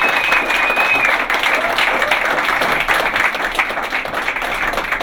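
A crowd applauding, many hands clapping together, with a high steady tone lasting about the first second. The clapping dies away near the end.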